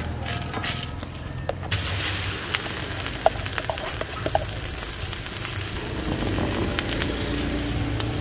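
Egg mixture hitting a hot, oiled flat griddle and frying with a steady sizzle that starts suddenly a couple of seconds in. A few light clicks of the metal spoon spreading it sound in the middle.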